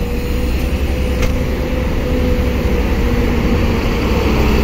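Intercity coach bus's diesel engine running low and steady as the bus pulls away and drives slowly past close by.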